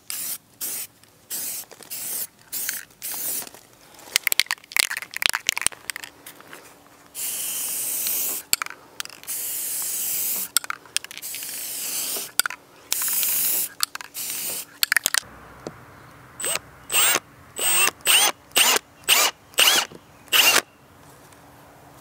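Aerosol spray paint hissing onto PVC conduit, first in many short bursts and then in several longer passes of a second or more. Near the end a cordless drill whirs in half a dozen short bursts, each rising in pitch as it spins up.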